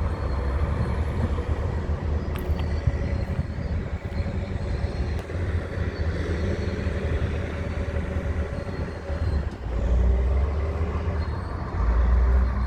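Heavy diesel engine of a Hitachi 870 excavator running steadily with a deep rumble, which swells about ten seconds in and again near the end.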